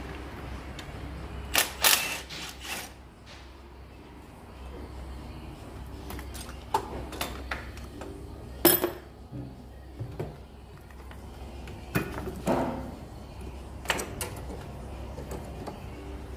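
Scattered clicks and knocks of a cordless ratchet and metal parts as the clutch slave cylinder's two 13 mm bolts are undone and the cylinder is worked off the gearbox, over a low steady hum; the sharpest knock comes about nine seconds in.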